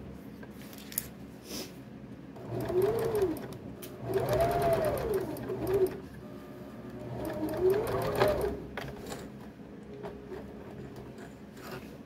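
Domestic electric sewing machine stitching a seam in three short runs, its motor speeding up and slowing down in pitch each time, with quieter pauses between runs.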